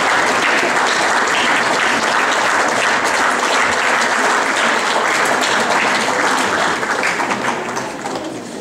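Audience applauding, a dense steady clapping that thins out and dies away near the end.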